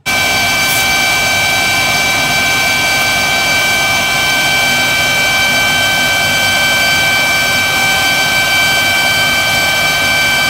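Factory machinery running steadily: a loud, even roar with a high whine over it that starts suddenly and holds without a break.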